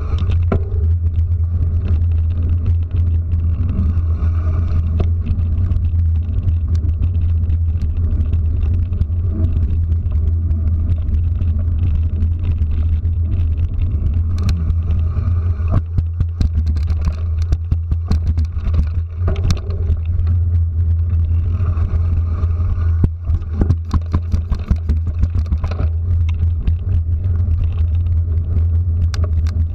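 Steady low rumble of a ride on a two-wheeler: wind and motion noise on a camera mounted on the vehicle. Frequent sharp clicks and knocks come in the second half as it goes over rough paving.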